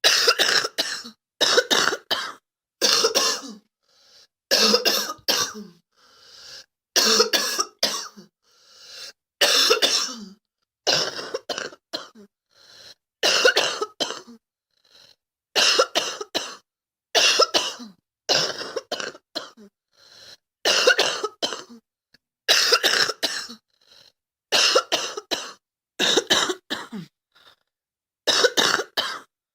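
A girl coughing over and over in short fits of two or three coughs, a fresh fit every second or two, with a few quieter breaths between them.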